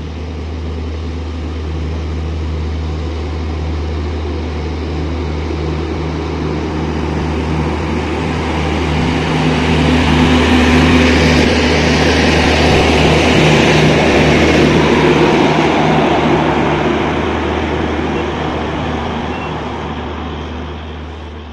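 Diesel generator sets in a passenger train's power car running with a steady low hum, mixed with the noise of the coaches rolling slowly along the track. The sound grows loudest about halfway through as the power car passes close by, then eases off.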